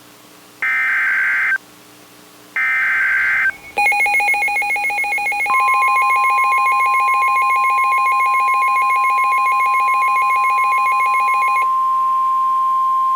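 Emergency Alert System SAME header: the last two of its three warbling one-second digital data bursts, each followed by a short gap. Then the EAS two-tone attention signal sounds for about eight seconds. About two seconds into it, the steady single NOAA Weather Radio 1050 Hz alert tone joins and outlasts it. Together they mark the start of a severe thunderstorm warning broadcast.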